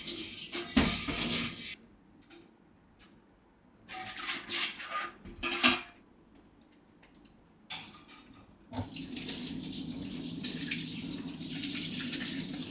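Water running from a kitchen tap into a sink in stretches: on, then off, then irregular splashing bursts, then a steady run that stops sharply.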